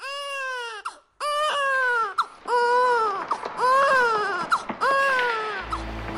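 A baby crying: five wailing cries of about a second each, rising and falling in pitch, with short breaks between them. Background music with sustained low notes comes in near the end.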